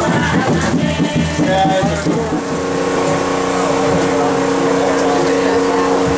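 Music and voices for about two seconds, then an abrupt change to a steady machine hum with several held tones from a tourist submarine's passenger cabin.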